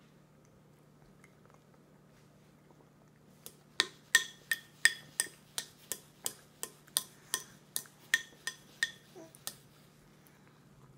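A plastic toddler fork tapping repeatedly against a clear fruit container, about seventeen sharp ringing clinks at about three a second, starting about three and a half seconds in and stopping about six seconds later.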